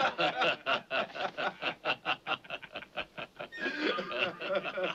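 A group of men laughing mockingly, a steady run of short ha-ha bursts overlapping one another.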